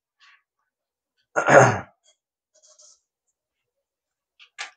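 One short, loud burst of breath from a person, like a sneeze or cough, about a second and a half in. A single sharp click comes near the end.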